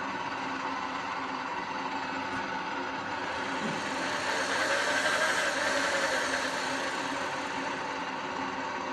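Bridgeport Model 1S horizontal milling machine running steadily with a mechanical hum. About four seconds in it grows louder for a few seconds, with a hiss that rises and then falls, before settling back.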